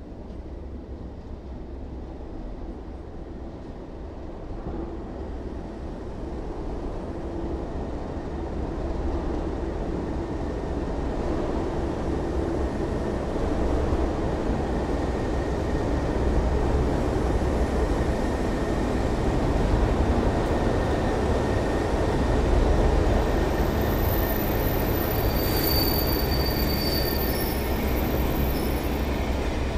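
Class 37 diesel locomotives, their English Electric V12 engines running, hauling a test train past and getting steadily louder as they come alongside. A thin, high wheel squeal joins in near the end as the train runs over the curved track.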